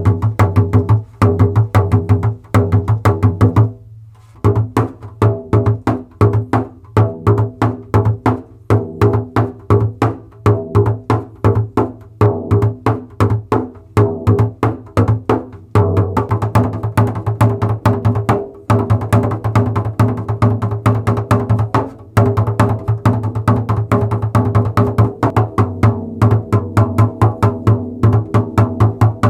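Remo 14-inch frame drum with a synthetic Fiberskyn head played with the hands and fingers: a rapid, dense run of strokes and slaps over a deep low ring from the drum head, with a short break about four seconds in. Recorded on a phone.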